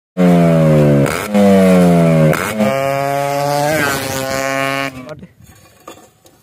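Yamaha RX-series two-stroke single-cylinder motorcycle running through a modified silencer, heard in a few short cut clips. The engine note falls in pitch twice, then holds and rises briefly before dying away about five seconds in.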